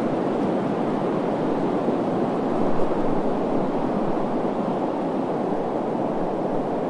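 Recorded wind ambience used as white noise: a steady, deep, even rushing, swelling briefly about three seconds in.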